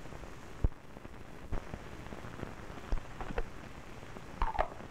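Surface noise of an old film soundtrack running over blank leader: a steady hiss with scattered sharp clicks and pops. A brief, slightly louder sound comes near the end.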